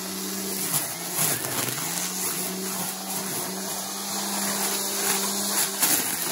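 Backpack-battery-powered string trimmer running, its electric motor giving a steady hum over the whir and swish of the cutting line; the pitch sags briefly twice in the first two seconds as the line bites into brush.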